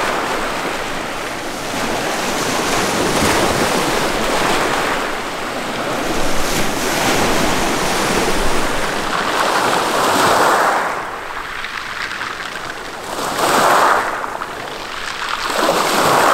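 Small waves breaking and washing up a pebble beach, with wind blowing over the microphone; the surf swells and fades in separate surges in the second half.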